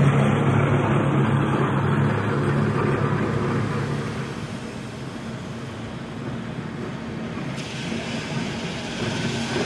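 Vintage electric tram running past on its track with a steady hum that fades away over the first few seconds, then a second tram growing louder as it approaches near the end.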